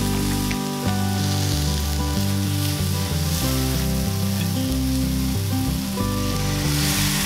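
Long beans, carrot and shiitake mushrooms sizzling in a hot cast-iron skillet, the sizzle flaring up near the end as a splash of water hits the pan. Background music with held bass notes plays underneath.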